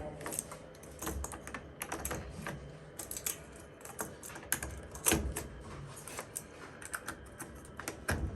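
Irregular light plastic clicks and rattles as wiring connectors are pushed back onto a washing machine's new water inlet valve, with one louder knock about five seconds in.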